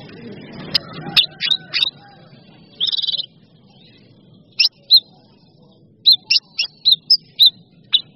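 Songbird giving short, sharp high chirps: a quick run of four notes about a second in, a brief buzzy rattle near three seconds, then single clipped notes, several in quick succession between about six and seven and a half seconds. A low rumble underneath fades out after the first second or two.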